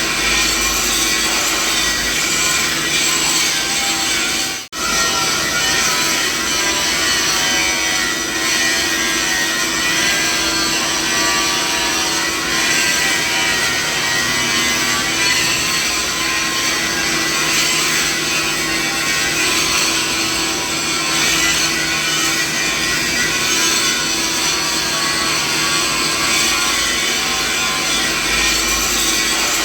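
Steady mixed machinery noise: a dense, even hum and whine with many held tones stacked from low to high pitch. It cuts out for an instant about four and a half seconds in, then carries on unchanged.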